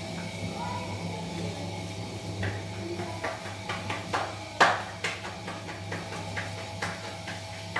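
Hands squeezing and pressing raw minced-meat kebab mixture in a glass bowl: a string of soft wet squelches and light knocks against the bowl, with one louder knock a little past halfway, over a steady low hum.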